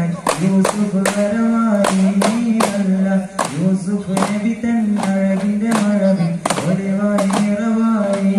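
Voices singing a melody in unison over a steady beat of sharp percussive strikes, about two to three a second.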